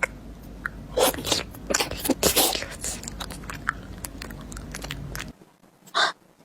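Food being bitten and chewed close to the microphone, with crisp crunches loudest between about one and three seconds in; the steady background drops out suddenly near the end.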